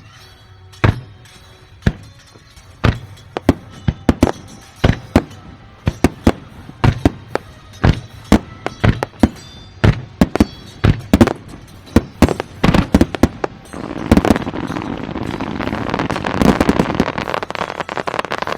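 Aerial firework shells bursting in a series of sharp bangs that start about a second apart and come faster and faster. Near the end they merge into a dense, continuous crackling barrage of many bursts at once, with music faintly underneath.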